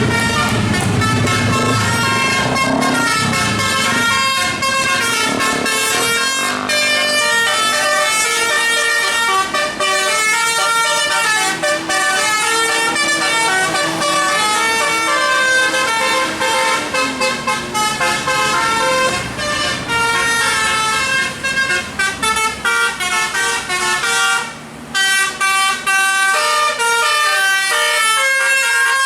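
Bus's 'telolet' musical air horns playing a long tune of many quick-changing notes, several tones sounding together, with a brief pause near the end. A bus engine is heard running under the first few seconds.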